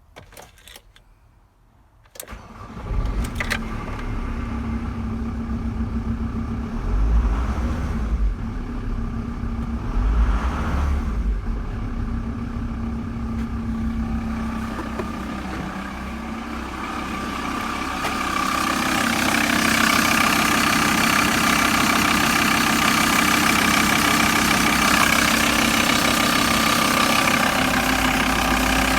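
Volkswagen T4 2.5 TDI (AJT) five-cylinder turbodiesel engine starting about two seconds in, then running steadily, swelling briefly twice. For the last ten seconds or so it runs louder and brighter.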